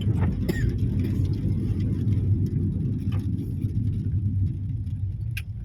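Steady low rumble of a car's engine and tyres heard from inside the moving car's cabin, with a few faint ticks; the rumble eases a little near the end.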